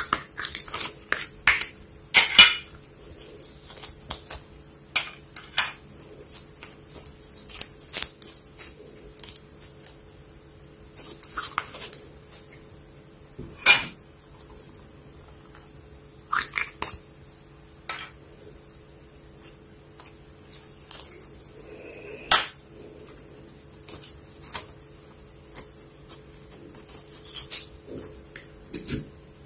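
Slime being handled: irregular small clicks, taps and clinks against a hard container, the sharpest about 2, 14 and 22 seconds in.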